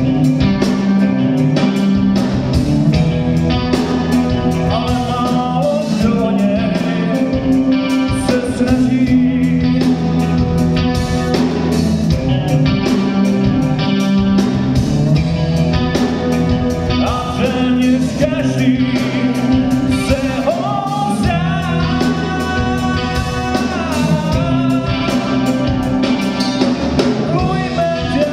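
Hard rock band playing live: electric guitars and bass guitar over a drum kit, with held and bending notes.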